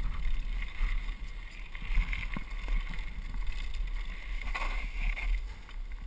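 Mountain bike descending a dirt trail at speed: wind buffeting the on-board camera's microphone as a steady low rumble, with tyre and frame rattle and a few sharp knocks about two seconds in.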